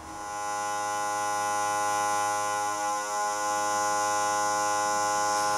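SakerPlus electric vacuum sealer's small pump motor spinning up and then running with a steady buzzing hum as it draws the air out of a Mason jar to vacuum-seal the lid.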